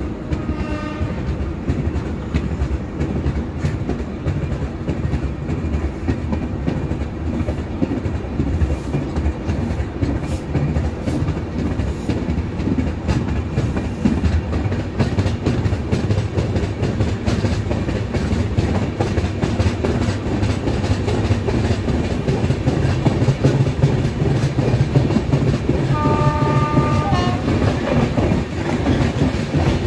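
Passenger coach rolling out of a station and gathering speed: steady wheel rumble with clickety-clack over the rail joints, growing a little louder. A locomotive horn sounds briefly just after the start and again about 26 seconds in.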